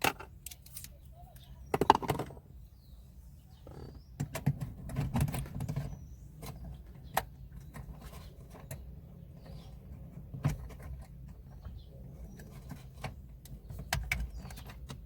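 Scattered, irregular clicks and clinks of hand tools and small bolts being handled while car dashboard bolts are taken out, with a denser patch of rustling handling noise a few seconds in.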